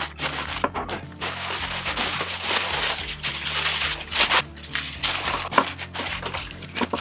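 Aluminium foil crinkling and rustling as a sheet is pulled from the roll and handled around a rack of ribs, with louder crackles about four and five and a half seconds in. Background music plays under it.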